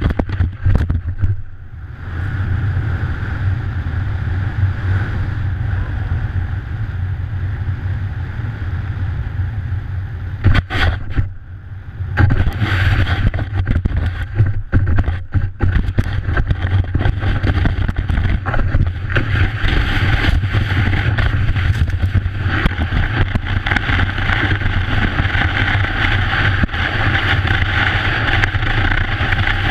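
Wind rushing over a ski-mounted action camera's microphone during a fast speed-riding descent, a steady rumble with skis hissing and scraping over snow and snow spray clattering against the camera. The noise dips briefly twice, about a second and a half in and again about eleven seconds in.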